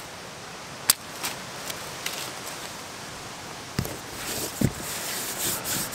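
Paper parcel tape being patched onto a cardboard tent wall: the tape pulled from its roll, then a hand rubbing and pressing it down on the cardboard in irregular strokes with a few soft knocks, louder toward the end.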